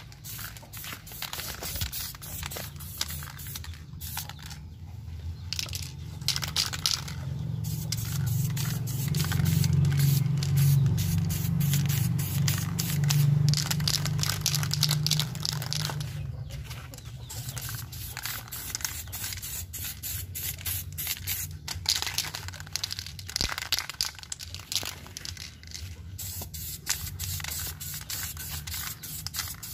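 Diton aerosol spray paint can spraying a clear coat, a crackly hiss in spurts with short pauses. A low hum swells and then fades in the middle.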